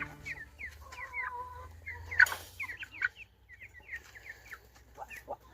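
A flock of chickens clucking, with many short, high calls overlapping. A brief rustle stands out about two seconds in.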